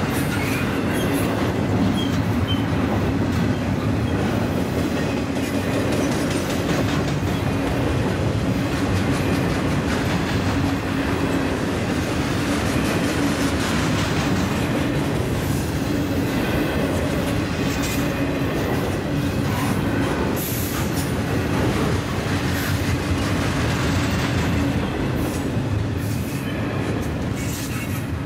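Double-stack intermodal well cars of a freight train rolling steadily past at close range, their steel wheels running on the rails.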